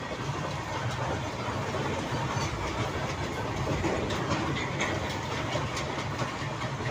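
Indian Railways freight train passing at speed, a string of open-top and flat wagons: a steady rumble of wheels on rail, with clicks as the wheels cross rail joints.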